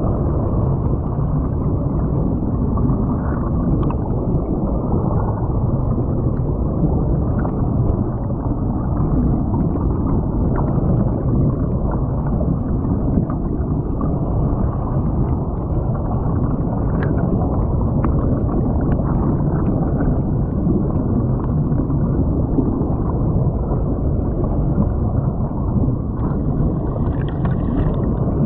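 Creek water heard from underwater through a submerged camera: a steady, muffled rushing and gurgling of the current with bubbles, with a few faint clicks.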